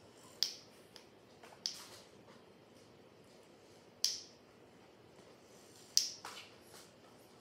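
African grey parrot making sharp clicking sounds: four loud clicks, irregularly spaced a second or two apart, with a few fainter clicks between them.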